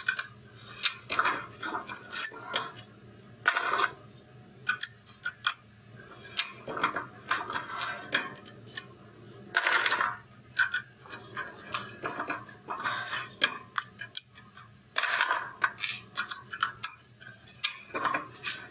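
Reloading press working spent brass rifle cases one after another, depriming and neck-sizing them: irregular metallic clicks, clinks and clacks of brass and steel, with a louder clatter every five or six seconds.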